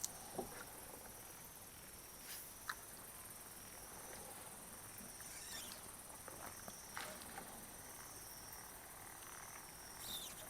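Night insects chirring: a thin, high, steady trill that breaks off and starts again a few times, with a few faint clicks.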